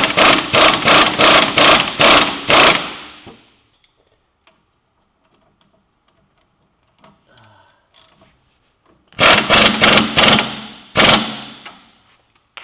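Pneumatic impact wrench hammering a fastener at the front wheel hub and knuckle, run in quick trigger bursts of about three a second: one run in the first three seconds, and another about nine seconds in.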